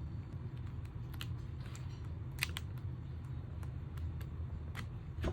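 Album packaging being handled: scattered light clicks and crinkles, the sharpest about two and a half seconds in, over a steady low hum.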